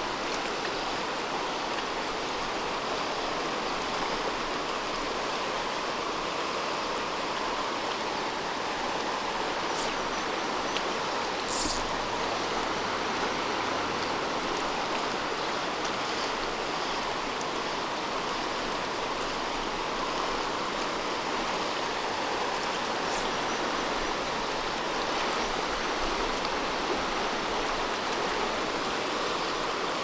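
Upper Sacramento River rushing steadily through a rocky riffle, running high after rains. A single brief click sounds about twelve seconds in.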